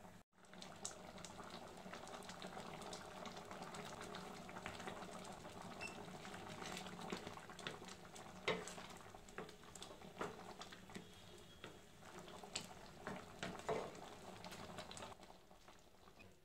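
Thick vegetable sambar boiling in a pan: steady bubbling with scattered pops and plops, and a wooden spatula stirring and scraping through it about halfway through. The sound drops off near the end.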